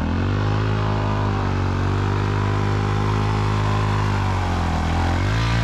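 A car engine running at steady, fairly high revs, its note sagging a little about four to five seconds in.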